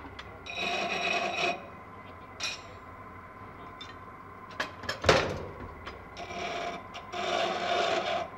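A steel file's end ground against a spinning grinding wheel in three short bursts, to cut the file to its exact length. A sharp knock comes about five seconds in.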